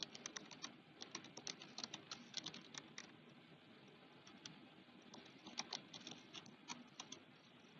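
Faint typing on a computer keyboard: quick runs of keystrokes, with a short pause about halfway through.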